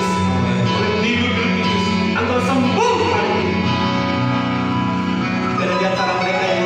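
Worship music in a church: a keyboard holding sustained chords with singing over it.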